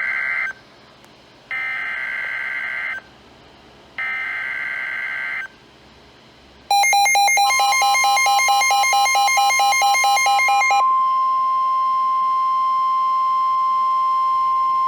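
Emergency Alert System SAME header: three bursts of shrill warbling digital data tones, the first ending just after the start and the other two at about one-and-a-half-second intervals, marking the start of a new alert. About seven seconds in comes a loud, rapidly pulsing buzz of several tones, over which a single steady alert tone starts and then holds on alone.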